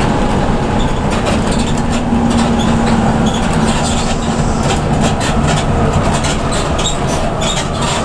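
Cabin noise inside a Hino RK diesel bus cruising on the highway: a steady engine and road rumble with frequent clicks and rattles throughout.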